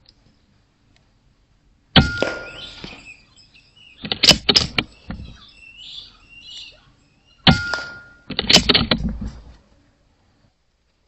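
Two shots from a .22 air rifle, about five and a half seconds apart, each a sharp crack with a brief ringing tone. Each shot is followed by a second or so of metallic knocks and clatter.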